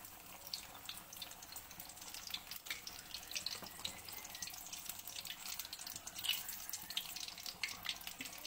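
A gram-flour-coated spinach and chicken cutlet deep-frying in hot oil in a kadhai: a steady sizzle with many small crackles and spits.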